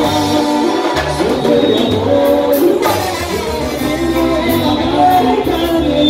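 Live Latin band playing a song with a brass section, keyboards, drum kit and bass, the bass and drums keeping a steady beat under the melody lines.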